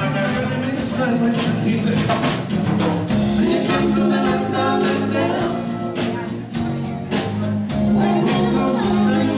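Live dance band playing a song with singing over a steady drum beat and bass line.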